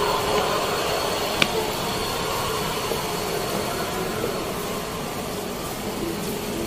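Steady background hum with faint, indistinct voices, and one sharp click about a second and a half in.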